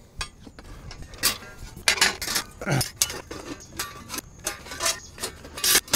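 Stainless steel side panels of a Lifedoo UROD Fire Pro portable grill clinking and clanking against each other as they are slotted together, a series of irregular sharp metal knocks, the loudest near the end.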